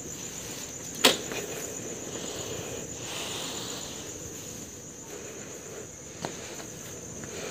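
Insects trilling steadily in a high, finely pulsing tone, with one sharp click about a second in and a fainter click near the end.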